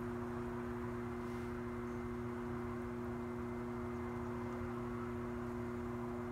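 Potter's wheel motor running steadily: an even hum of two held tones over a low rumble, unchanging while clay is shaped on the spinning wheel head.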